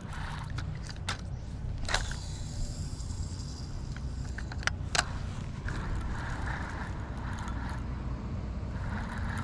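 A cast and retrieve with a Zebco push-button spincast reel: a sharp click about two seconds in with a brief hiss after it, a second click about five seconds in, then the reel cranking steadily as the lure comes back. A low wind rumble runs underneath.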